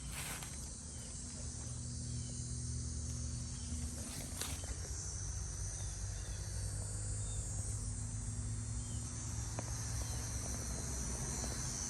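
Summer insect chorus, a steady high-pitched buzzing, over a low steady hum.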